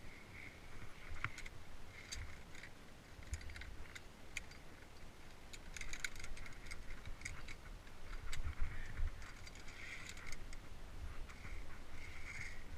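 Via ferrata lanyard carabiners clinking and jangling against the steel safety cable as a climber moves along it, with many sharp metallic clicks and scrapes over a low rumble.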